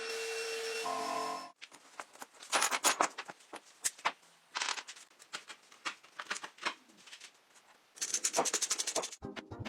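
A small power tool runs steadily, then cuts off about a second and a half in. Irregular scraping and rubbing strokes on metal follow, with a quick rapid run of ticks near the end.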